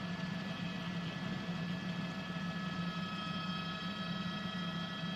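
Steady drone of a news helicopter heard through the reporter's cabin microphone: a low rotor and engine hum with several fixed high whining tones over it.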